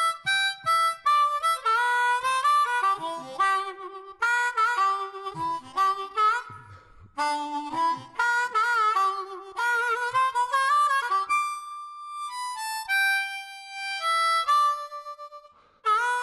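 Background music: a harmonica playing a melody of short notes, some of them bent and wavering, with a brief pause a few seconds in and a held note about three-quarters of the way through.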